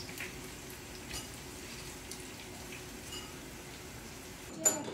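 Pakoras sizzling as they shallow-fry in oil in a frying pan, with light clicks of metal tongs turning them. A sharp knock comes near the end.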